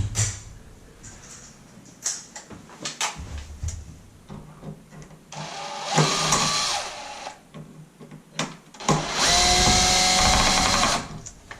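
Power drill running in two short runs of about two seconds each, driving out screws from a wall switch, with light handling knocks before the first run.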